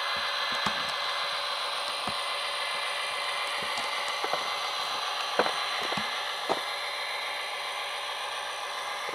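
Tsunami sound decoder in an Athearn SD40-2 model locomotive playing a steady diesel engine sound through its small speaker as the model runs, with a few light clicks scattered through it.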